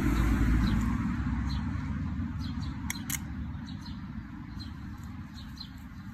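A low rushing noise outdoors, loudest at the start and fading away over several seconds, with faint high chirps throughout and two light clicks about three seconds in.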